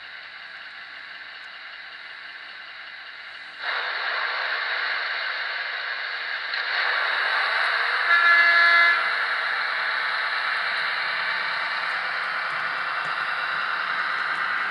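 Model freight train rolling past with a steady rushing clatter that gets louder about four seconds in. About eight seconds in comes a single blast of a train horn lasting roughly a second, the loudest sound here.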